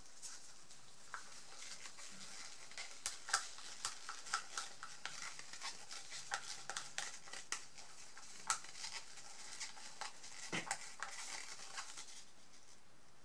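Wooden stir stick scraping and tapping against the inside of a thin plastic cup as mixed two-part resin is scraped out onto a photo canvas. It sounds as a scatter of light, irregular clicks and ticks that grows busier about three seconds in.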